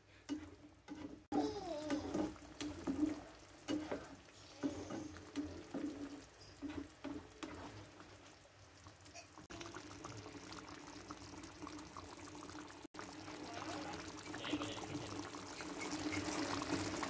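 Plastic spatula stirring thick tomato sauce with sardines in a non-stick wok: wet sloshing with light scrapes and taps against the pan. About halfway through, the stirring gives way to the sauce simmering with a steady bubbling.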